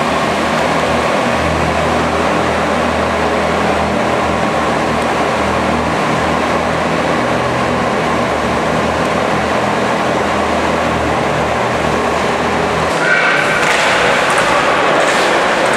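Ice resurfacing machine's engine running with a steady low hum as it drives across the rink; the hum cuts off near the end, leaving general arena noise.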